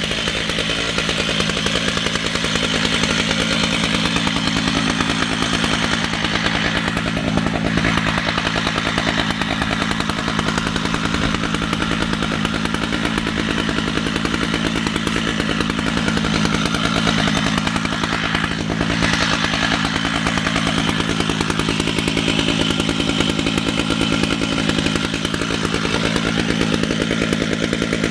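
Two-stroke chainsaw running steadily at high throttle as it rips a lengthwise cut through a red oak log on a chainsaw mill, with no drop to idle.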